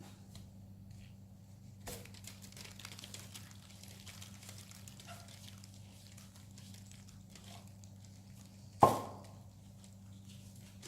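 Faint clicking and rustling handling noises over a steady electrical hum, with one sharp loud knock about nine seconds in.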